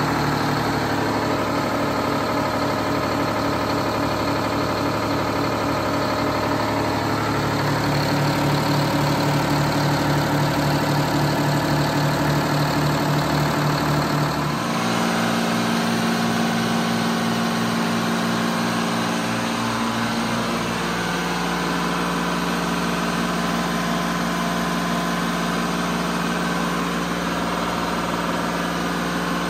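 Detroit Diesel 12V71 two-stroke V12 marine diesel idling steadily, just started after its blowers were refitted. Its tone shifts abruptly about halfway through.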